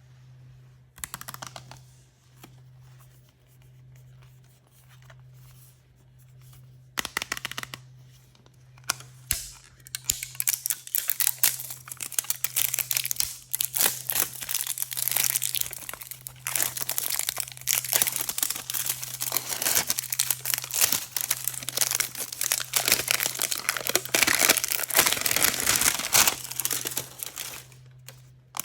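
Toy surprise packaging being torn open and crinkled by hand: two short rustles in the first few seconds, then dense, continuous crackling from about a third of the way in until just before the end.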